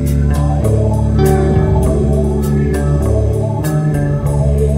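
Guitar-led background music with a bass line and a steady drum beat.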